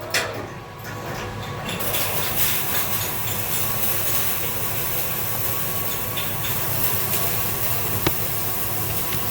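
MIG welding arc laying a bead on a small plate. It strikes about two seconds in and then runs as a steady hiss.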